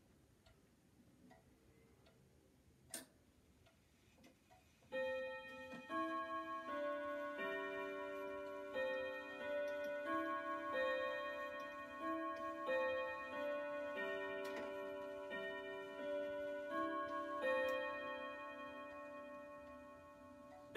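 Warmink wall clock ticking softly, with a sharper click about three seconds in. About five seconds in, its chime starts playing the melody for the hour as the hands reach twelve: ringing notes about every two-thirds of a second, each ringing on into the next.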